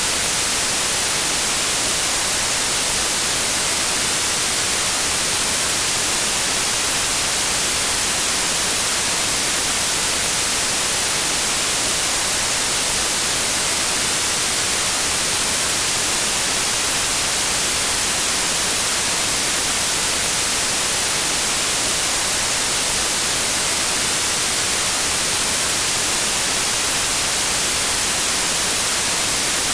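Steady synthetic white noise: an even, unchanging hiss, brightest in the high frequencies.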